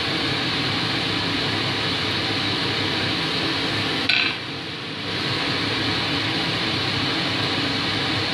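Steady rushing noise of the forge's fans, with a single short metallic clank about four seconds in; the rushing drops for about a second just after.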